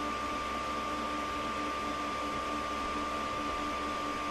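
Elegoo Neptune 2 FDM 3D printer running a print: a steady fan whir with a steady high whine, and a lower tone that breaks on and off as the print head moves. The stepper motors are nearly silent on their TMC2225 drivers, so the fan is the main sound.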